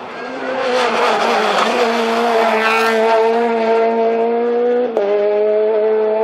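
Rally car engine held at high revs, rising over the first couple of seconds and then steady, with a brief break and a drop to a slightly lower pitch about five seconds in as it changes gear.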